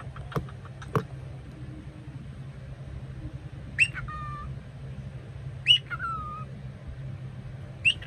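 Cockatiel calling: three short whistled calls about two seconds apart, each dropping sharply in pitch. Two sharp clicks come about a second apart near the start.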